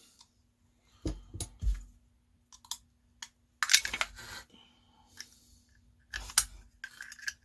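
A small battery-powered LED tea-light candle being pried apart by hand: irregular plastic clicks and small clattering knocks, a flurry of them about four seconds in and again near the end.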